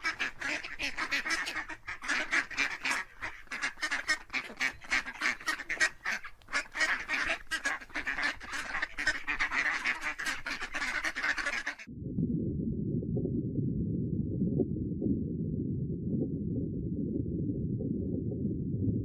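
A flock of waterfowl honking and quacking in a dense, rapid chorus of overlapping calls. About twelve seconds in it cuts off abruptly and gives way to a steady low rumble.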